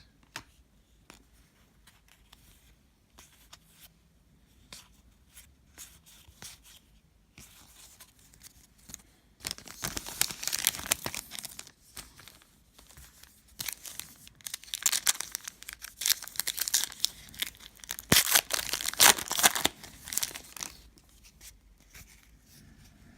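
Wrapper of a trading-card pack being torn open and crinkled, in three loud stretches of tearing starting about ten, fourteen and eighteen seconds in. Light clicks of cards being handled come before them.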